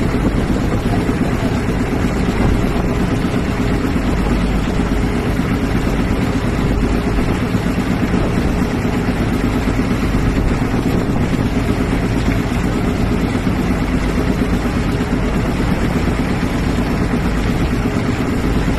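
An engine running steadily at an even idle, with water churning and splashing around a hand-held net of milkfish fingerlings.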